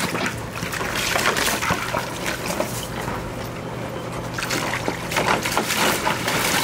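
Rottweiler stepping and pawing in a shallow plastic kiddie pool, water splashing and sloshing around its legs in uneven strokes.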